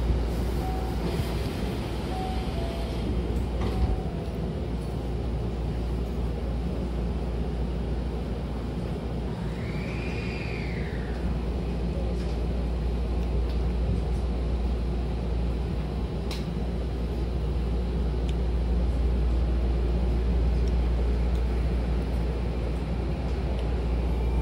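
Inside an electric commuter train standing at a platform: a steady low hum of the car's equipment, the sliding doors closing in the first half, then a rising motor whine near the end as the train starts to pull away.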